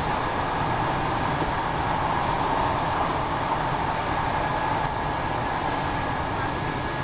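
Passenger train running along the line, heard from inside the carriage: a steady, even running noise of wheels and engine with a faint high tone held throughout.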